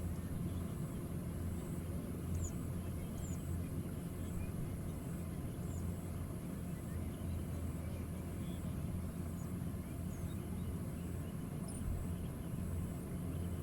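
Rice combine harvester engine running steadily with a low drone, with faint short chirps high above it.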